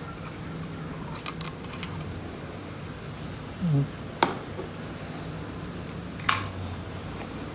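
A few sharp clicks and taps of small hard parts being handled while a laptop hard drive is taken out of its casing, over a steady low hum.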